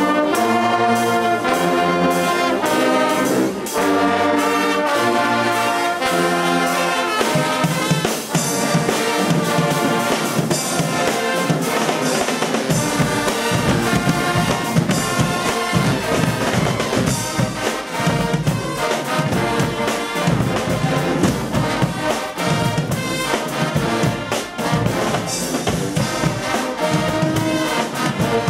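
A Guggenmusik carnival brass band playing loudly in full, brassy chords: trumpets, trombones and sousaphones. A heavy, pulsing drum beat fills in the low end about halfway through.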